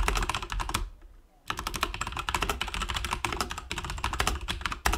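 Fast typing on a computer keyboard: a rapid run of key clicks, with a short pause about a second in.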